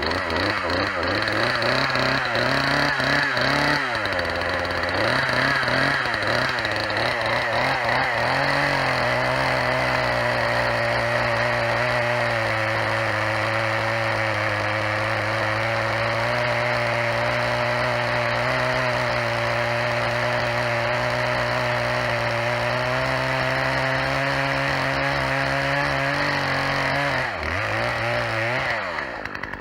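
Poulan two-stroke chainsaw engine running: revved up and down in the first few seconds, then held at a steady high speed for most of the time, its pitch dropping away near the end.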